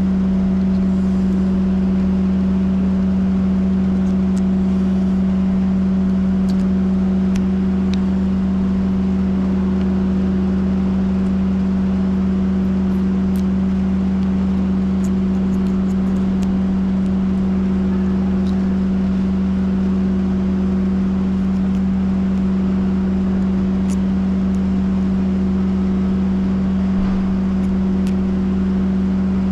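Steady low mechanical hum at a constant level, with a few faint scattered clicks.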